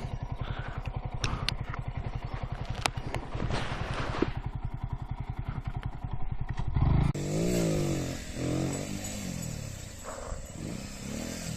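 Motorcycle engine running at low revs with an even chug and a few sharp clicks, then revved up and down in quick blips from about seven seconds in.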